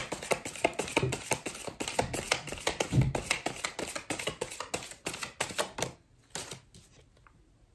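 A deck of tarot cards being shuffled by hand: a fast, dense patter of card-on-card clicks for about six seconds, then a couple of single taps as the shuffling stops.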